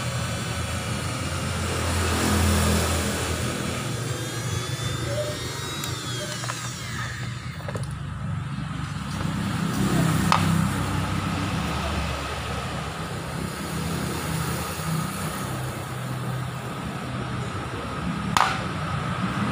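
Steady low engine rumble in the background, with a couple of sharp clicks about ten and eighteen seconds in.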